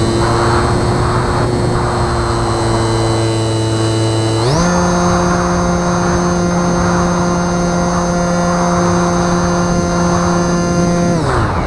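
Brushless electric motor and propeller of a Bixler 2 RC plane, whining at a steady pitch. About four and a half seconds in, the pitch steps up as the throttle opens, holds, then glides back down just before the end.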